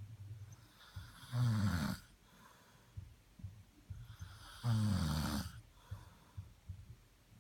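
A man snoring: two loud, rattling snores, one about a second and a half in and one about five seconds in, each lasting under a second.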